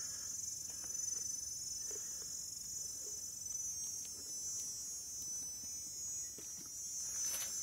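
Forest insect chorus: a steady, shrill, high-pitched drone of many insects calling at once, swelling near the end, with a few faint clicks.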